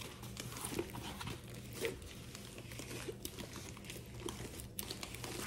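Plastic packaging crinkling and crackling in irregular small bursts as it is handled.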